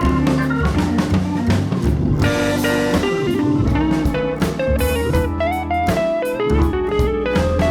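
Background music: a plucked guitar melody over a steady drum beat, in a bluesy style.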